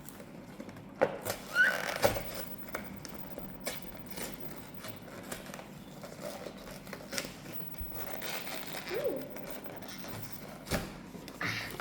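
A cardboard box and its packaging being handled and pried open by hand: scattered clicks, taps and rustles, loudest about a second in.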